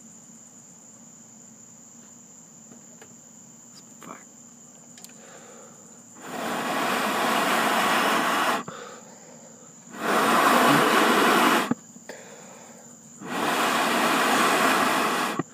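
Three long, hard breaths blown onto glowing charcoal to fan the coals into flame, each lasting about two seconds with a short pause between. Crickets chirp steadily underneath.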